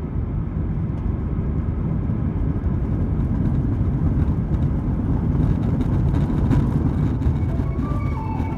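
Cabin noise of an Airbus A320 airliner coming in to land: a steady low rumble of engines and rushing air that grows a little louder midway, with a few short knocks or rattles. Music starts to come in near the end.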